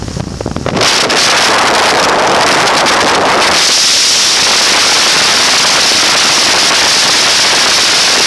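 Heavy wind rush buffeting the microphone of a camera held out of a light aircraft's open door in flight, starting about a second in over a lower engine rumble and staying loud and even.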